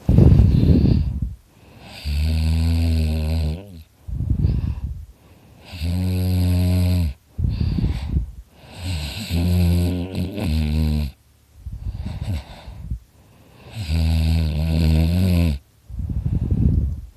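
A man snoring very loudly in his sleep: a low, droning snore every few seconds, with a loud rushing breath between snores.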